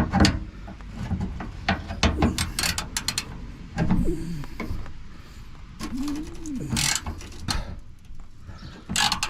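Ratchet wrench clicking as a penetrating-oil-soaked, rusted valance bolt is worked loose slowly. A dove coos about six seconds in.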